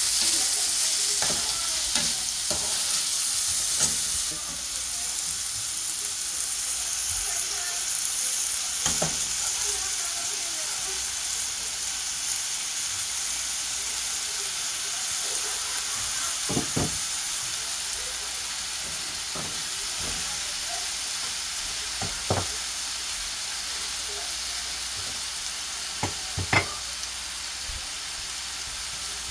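Pak choy sizzling in a hot pan, a steady hiss that eases a little about four seconds in, with a few sharp knocks of a utensil against the pan as it is stirred.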